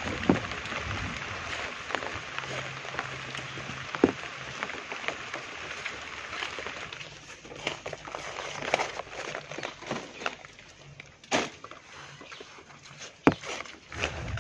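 Several sharp knocks and thuds as banana bunches are handled and dropped onto a pile, over a steady hiss that thins out about halfway through.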